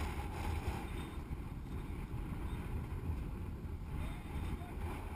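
Wind buffeting the microphone: a steady low rumble with a faint hiss of open-air noise.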